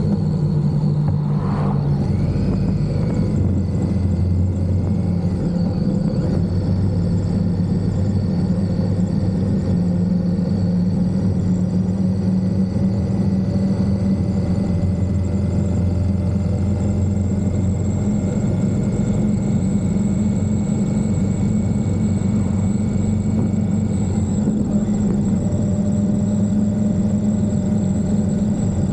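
Indian Scout's V-twin engine running steadily at cruising speed, with no big changes in revs.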